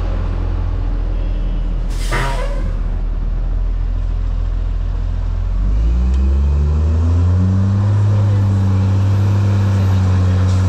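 Parking-lot tram's engine running as the tram rolls along, with a brief burst of noise about two seconds in. About five seconds in, the engine note rises and gets louder as the tram picks up speed, then holds steady.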